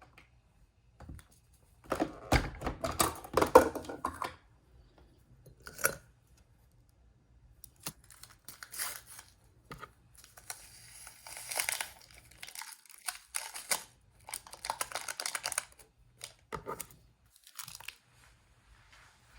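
Irregular crinkling and tearing, in several separate bouts with quiet between: something like paper or packaging being handled and torn.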